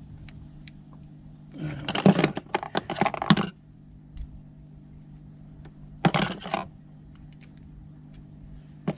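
Small metal hand tools or bits clattering and jingling against each other while being rummaged through in search of the right tool, in two bouts: a longer one about two seconds in and a short one about six seconds in.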